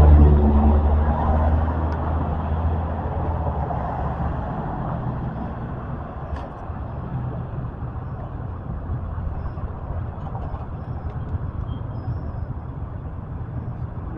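A motor vehicle passing on the street, its engine note loudest at first and fading away over the first few seconds, leaving a steady low traffic rumble.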